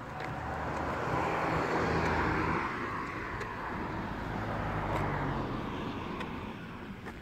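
A motor vehicle passing by: a rush of engine and tyre noise with a low hum swells over the first two seconds or so, then slowly fades away.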